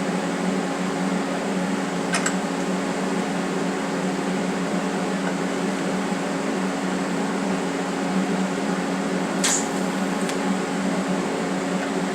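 TIG welder running: a steady electrical buzz with hiss, broken by a brief click about two seconds in and another near the end.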